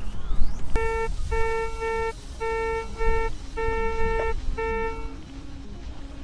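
Handheld metal-detector pinpointer beeping as it is passed over a scoop of sand: six stop-start beeps of a single steady pitch, some short and some drawn out, signalling a metal target in the sand. A steady low rumble of wind and surf runs underneath.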